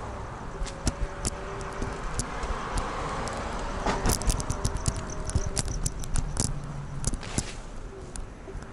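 Irregular clicks and rattles from a phone camera being handled and carried while moving along a street, over a low steady background with a faint wavering whine.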